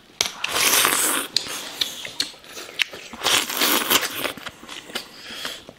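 Close-up slurping of egg-and-greens soup from a bowl: several noisy slurps, the two longest about a second each.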